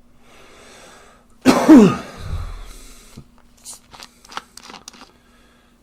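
A man coughs once, loudly, with a voiced falling tail and a smaller second cough after it, following a short intake of breath. A few short sharp clicks follow.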